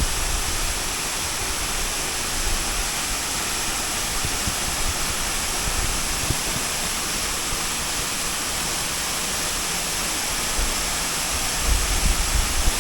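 Waterfall pouring with a steady, loud rush of water. It is running full after heavy rain.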